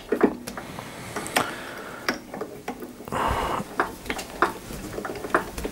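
Irregular small metallic clicks and ticks as a lathe chuck is turned by hand and a threading die cuts a thread on a 12 mm bar, with a short scraping stretch about three seconds in.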